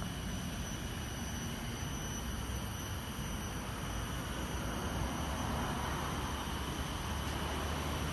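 Steady outdoor background noise: a low rumble with a hiss over it and a few faint steady high tones, swelling slightly from about halfway through.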